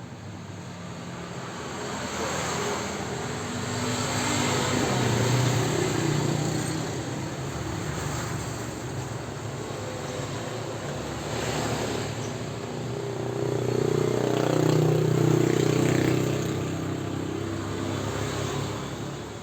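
A steady rushing, blowing noise over a low hum, swelling and fading in slow waves.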